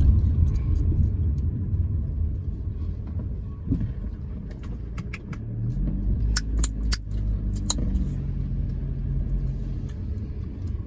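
Low rumble inside a car, with a cluster of sharp clicks and rattles about six to eight seconds in as someone moves about in the seat.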